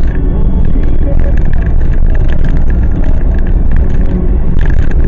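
A car's driving noise at a steady cruising speed: a loud, steady low rumble of engine and road noise, with scattered light clicks.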